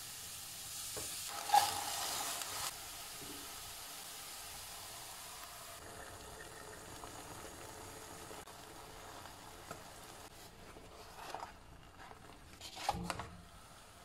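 Food sizzling in a hot nonstick frying pan: chopped mushrooms and onions sautéing and stirred with a wooden spatula, louder for the first couple of seconds. Then a steadier, quieter sizzle as beaten eggs and milk cook in the pan, with a few short knocks near the end.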